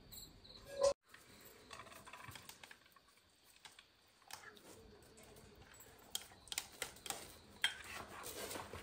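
Scattered light clicks and taps, growing more frequent in the last few seconds, as of small objects being handled.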